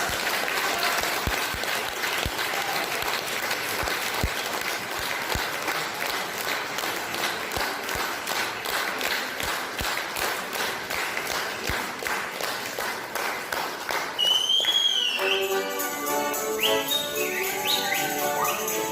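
Audience applauding steadily for about fourteen seconds. Then music with singing starts near the end.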